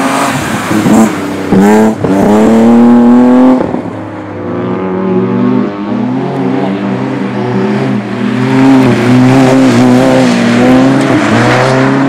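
Rally car engines being driven hard on a loose dirt track: a BMW 3 Series (E36) saloon revs up loudly with rising pitch for about two seconds, breaking off near the four-second mark. After that, a Citroën C2 rally car's engine runs and revs with a wavering pitch through the turns.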